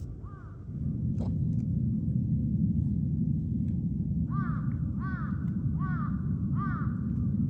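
A crow cawing, one caw near the start and then a quick run of five short caws about four seconds in, over a loud low rumble that sets in about a second in.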